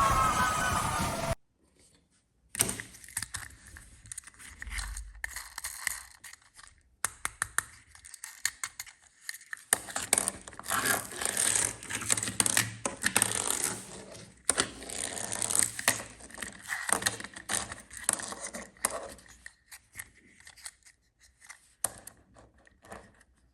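Toy vehicles being handled and moved: a long, irregular run of clicks, rattles and scrapes with a few short pauses. It follows a wavering siren that cuts off about a second and a half in.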